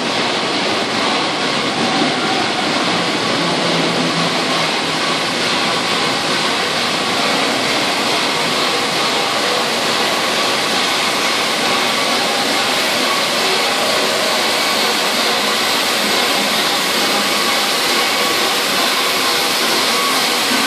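Steady loud hiss of steam from the Peppercorn A1 Pacific steam locomotive 60163 Tornado as it runs slowly into the platform, with no exhaust beat.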